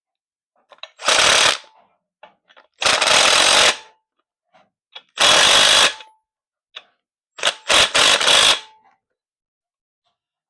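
Power driver running the clutch bolts in until they sit about flush: three bursts of about a second each, then a few quick short pulls of the trigger near the end.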